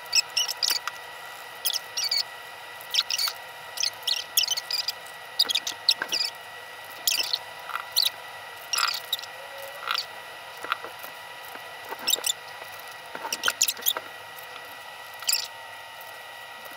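Irregular short clicks, taps and rustles of small plastic things being handled: a plastic funnel and bottle, and packets of coloured sand, as sand is poured into a small sand-art bottle.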